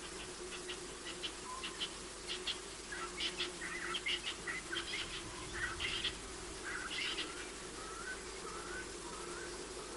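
Birds chirping and twittering in quick short calls, busiest in the middle, followed by a few short wavering whistles near the end.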